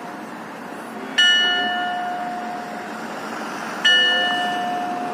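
A bell on the Zimmer Tower's facade, struck by a hammer-wielding figure in the clock show, rings twice about two and a half seconds apart. Each stroke rings out and fades slowly, with a steady hum left between strokes.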